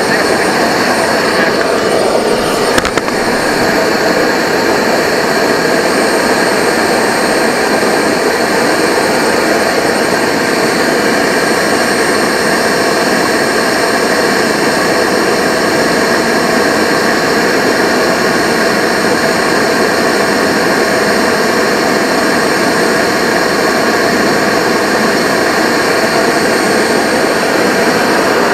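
Turbine engine of a radio-controlled model jet running steadily and heard close up, a loud even rush with a steady whine. A faint high tone drops out about three seconds in, next to a brief click.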